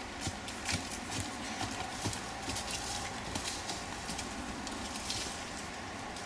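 Hoofbeats of a ridden horse on a dirt paddock: dull, uneven thuds a few times a second.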